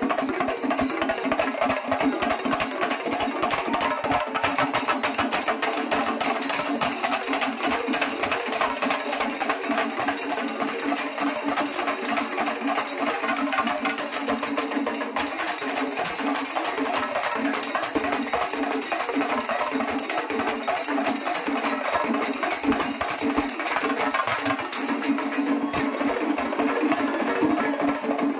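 Singari melam ensemble of Kerala chenda drums with ilathalam hand cymbals, playing a fast, dense, unbroken rhythm.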